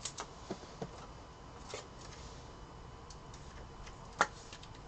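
Trading cards being handled and slid against one another in the hands: faint rustling with a few light clicks, the sharpest one about four seconds in.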